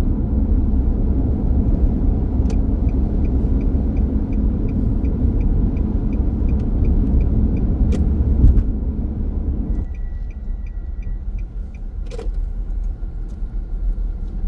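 Car driving: a steady low road-and-engine rumble, with the turn signal ticking quickly and evenly in two runs. The rumble drops about ten seconds in as the car slows, and there is a single knock a little later.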